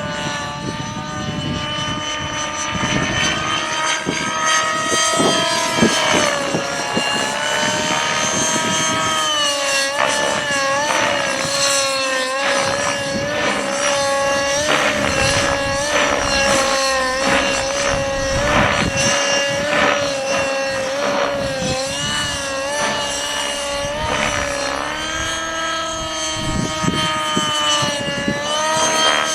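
Align 600N nitro RC helicopter in flight, its 55-size two-stroke glow engine and rotors running with the pitch rising and falling as the pilot manoeuvres. Wind buffets the microphone with a low rumble.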